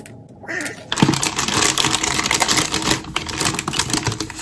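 Crinkling and rustling of packaging as a new motherboard is unpacked: a dense run of rapid small crackles and clicks starting about a second in.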